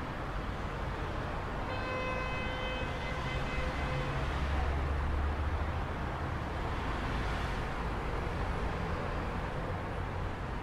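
City traffic noise, steady, with a horn sounding one held note for about two seconds near the start and a low rumble swelling briefly in the middle.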